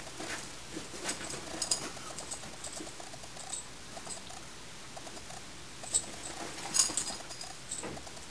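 Two Airedale terriers play-fighting with their mouths: scattered small clicks, snaps and scuffling, with a few sharper clicks about six and seven seconds in.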